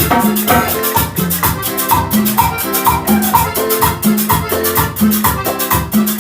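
Salsa band playing an instrumental passage with no singing: a steady beat of shakers and drums over a repeating bass line and melodic figure.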